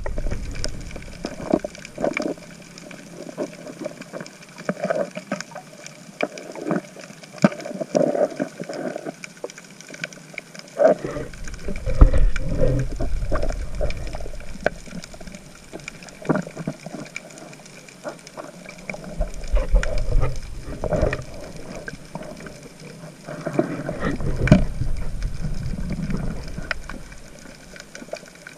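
Underwater sound through an action camera: scattered sharp clicks and crackles over a muffled water rush, which swells louder three times.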